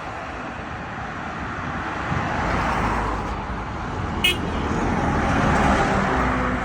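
Road traffic: vehicles driving past, their engine and tyre noise swelling and fading twice. A brief, sharp, high-pitched click cuts in about four seconds in.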